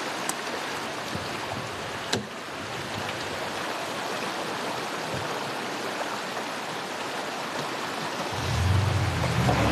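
Shallow mountain stream rushing over stones, with a faint knock or two. Near the end a low hum comes in.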